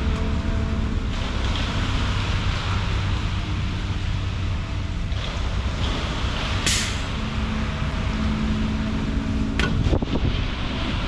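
A concrete mixer truck's diesel engine running steadily, over a broad steady hiss. A short, sharp hiss comes about two-thirds of the way through, and a few knocks near the end.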